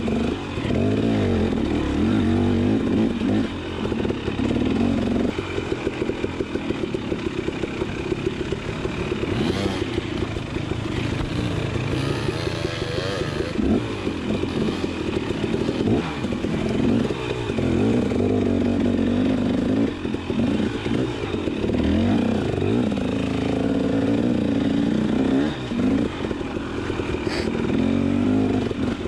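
Off-road trail vehicle's engine revving up and down as it is ridden over rough trail. The throttle closes briefly now and then, about four seconds in and again around twenty and twenty-five seconds in.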